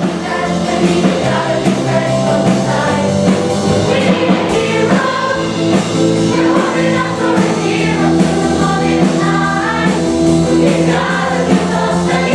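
Stage musical number: a group of voices singing together over instrumental accompaniment.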